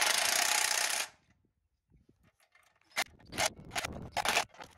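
Cordless impact driver hammering a bolt tight, stopping abruptly about a second in. After a short silence, several short bursts follow as it drives further bolts.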